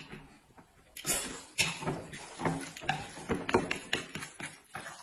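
Chopsticks stirring and tossing a plate of sauced corn noodles, an irregular run of wet clicks, smacks and squelches, mixed with close-up eating and slurping noises.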